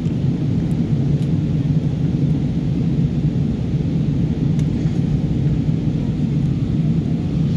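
Steady low rumble of an Airbus A320 passenger cabin in flight: engine and airflow noise while the jet descends.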